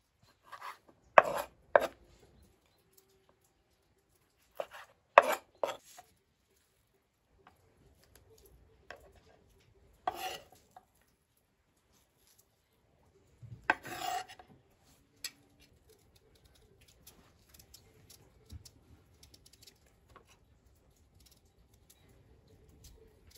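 Knife chopping raw meat on a wooden cutting board, in short bursts of sharp strokes with pauses between. In the last part, faint light scraping of a small knife peeling a potato.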